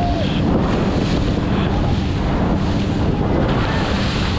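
Wind buffeting the microphone on an inflatable banana boat towed at speed, with sea water rushing and spraying along its sides; a steady, loud rush.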